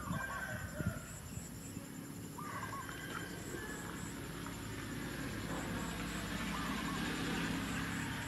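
Short animal calls in quick runs of three or four, like fowl clucking, over a steady hiss that swells after about five seconds, with two sharp knocks in the first second.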